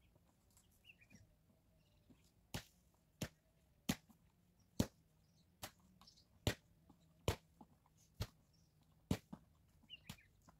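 A run of nine sharp, evenly spaced strikes, a little under a second apart, starting a couple of seconds in and stopping shortly before the end.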